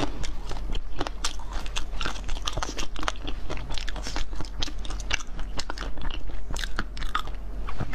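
Crunching and chewing as the hard shell of a large blue dome-shaped frozen dessert is bitten into, with many sharp irregular cracks one after another.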